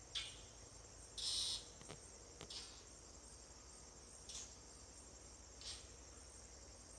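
Crickets trilling steadily in the background, with about five short high chirps scattered through, the loudest about a second in.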